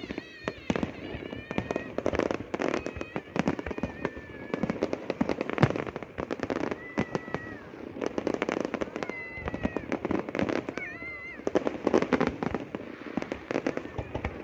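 Fireworks display: a dense, continuous string of bangs and crackling pops, with short high-pitched tones sounding over them several times.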